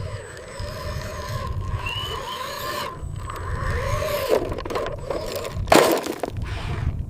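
Small electric motors of a model construction machine whining up and down in short arcs over scraping and grinding, with a short, loud scraping rush a little before the end.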